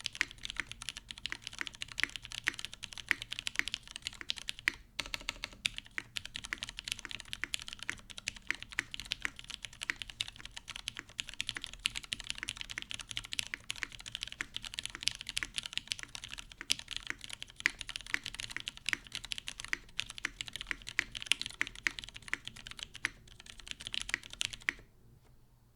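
Fast continuous typing on a Jane CE V1 mechanical keyboard with lubed vintage Cherry MX Brown switches in a top-mounted aluminum plate and GMK keycaps: a dense stream of key clacks. There is a brief pause about five seconds in, and the typing stops shortly before the end.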